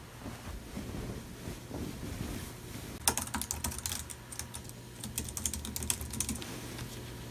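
Typing on a slim tablet keyboard case: a quick run of key clicks starts about three seconds in and stops after about three seconds.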